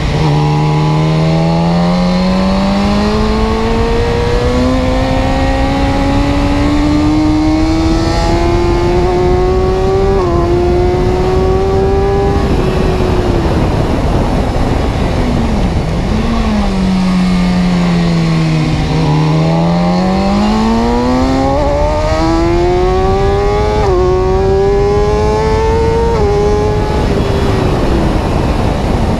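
Motor vehicle engine noise over a steady rumble. Its pitch climbs steadily for about ten seconds, with a small jump along the way, then falls away. It climbs again from about nineteen seconds in, with a couple more small jumps, and falls once more near the end.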